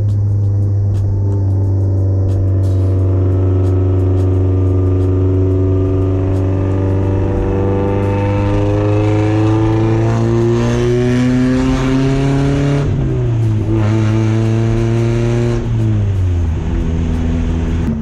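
Porsche 944's four-cylinder engine running through a straight-through Lindsey Racing 2.5-inch exhaust with no catalytic converter and no mufflers, heard under way. The engine note climbs slowly under acceleration, drops sharply at two upshifts about thirteen and sixteen seconds in, then holds steady at cruise.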